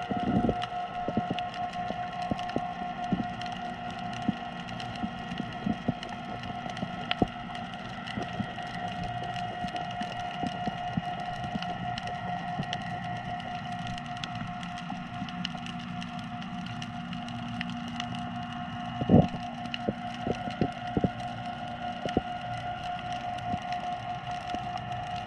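Underwater sound picked up by a submerged action camera: a dense, irregular crackle of small clicks over a steady hum of several pitched tones. Two heavier thumps stand out, one right at the start and one about three-quarters of the way through.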